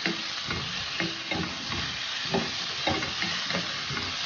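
Chopped tomatoes, onion, garlic and ginger sizzling in hot oil in a square pan, stirred with a wooden spatula that knocks and scrapes against the pan about twice a second.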